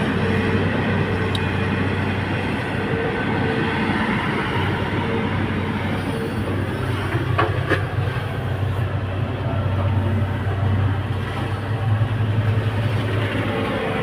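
Excavator's diesel engine running steadily as it works, a low drone with a couple of sharp knocks about halfway through.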